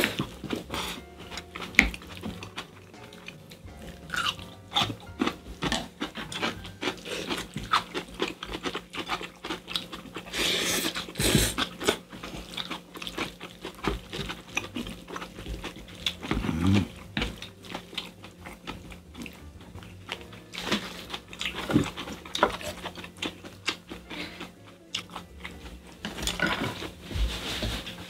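Two people eating spicy stir-fried squid over rice: chewing, slurping, and spoons and chopsticks clicking against the bowls, all irregular, busiest about ten seconds in. A steady low hum runs underneath.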